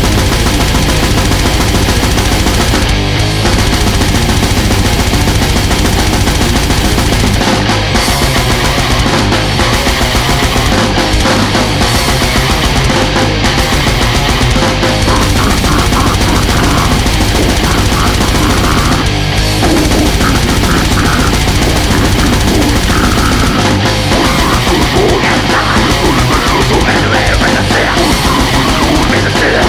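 Loud, dense extreme metal music: distorted guitars, bass and drums in a continuous wall of sound, with a few brief breaks.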